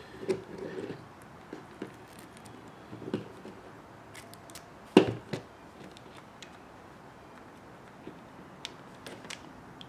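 Plastic RC axle parts (axle housing and steering knuckle) handled and fitted together by hand: scattered light clicks and knocks, the loudest about halfway through.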